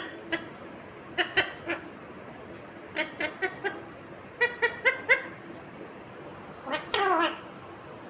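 Indian ringneck parakeet giving short, clipped chattering calls in quick clusters of three to five, then one longer call falling in pitch near the end.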